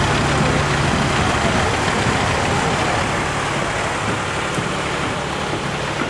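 Market fair background noise: a steady din with a low hum underneath.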